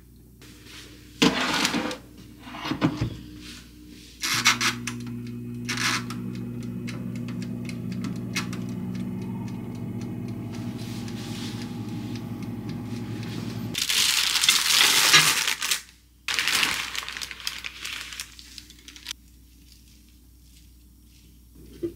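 Clicks and knocks as a pizza is put into a small countertop electric oven and its dial is turned, then the oven running with a steady low hum for about ten seconds. The hum cuts off and is followed by two loud stretches of noise.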